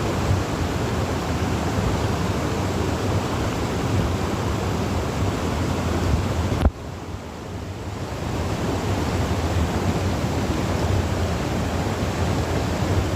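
Steady outdoor rushing noise, heaviest in the low end, with a sharp click about seven seconds in, after which it drops for a moment and builds back up.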